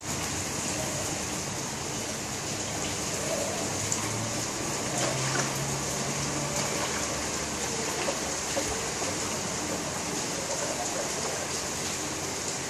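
Steady rain, a constant even hiss, with a faint low hum for a couple of seconds near the middle.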